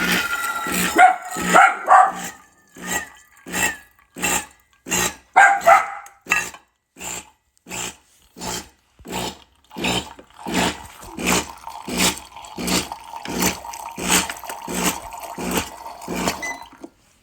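A dog barking over and over, about one to two barks a second, with a few higher yelps in the first few seconds; the barking stops shortly before the end.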